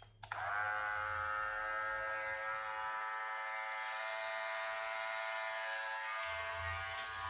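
Cordless electric hair clipper switched on and running with a steady, quiet buzz. It starts about a quarter second in, settles quickly to an even pitch and holds it.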